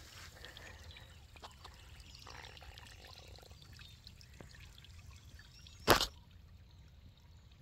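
Thin trickle of water running over rocks and mud in a shallow seep, a faint steady trickling with small drips. About six seconds in there is one brief loud knock, the loudest sound.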